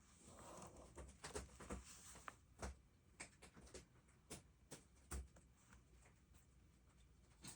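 Quiet handling of a paper planner and stationery: a soft rustle about half a second in, then a dozen or so irregular, light taps and clicks.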